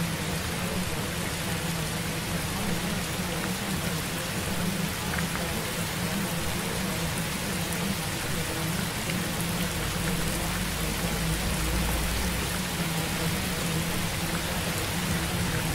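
Steady hiss of rain-like ambient noise, with a low rumble swelling for a few seconds past the middle.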